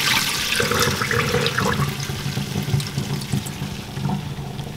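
Soaking water poured from a glass bowl through a metal mesh strainer into a stainless steel sink, splashing at first and thinning to a trickle as the bowl empties. This is the salty soaking water being drained off dried salt cod.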